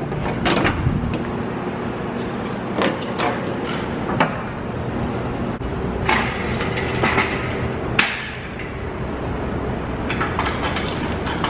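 Shop work noise: scattered knocks and clinks of metal over a steady low hum.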